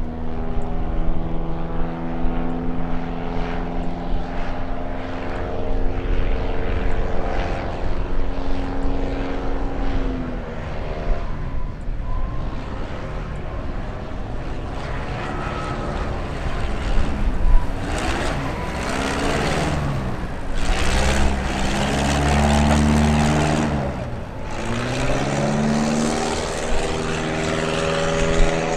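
Single-engine light plane's piston engine and propeller running throughout, with no gaps. Its note falls as the plane passes about a third of the way in. In the second half it swings down and up several times, with a rush of noise as the plane goes by low and close.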